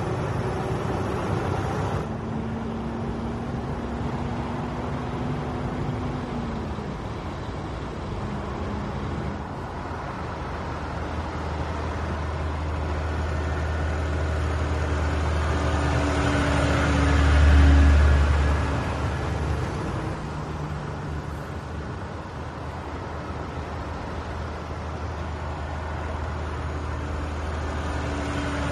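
Volvo FH semi-truck with trailer driving by: diesel engine running with tyre and road noise, swelling loudest as it passes close about two thirds of the way through and rising again near the end.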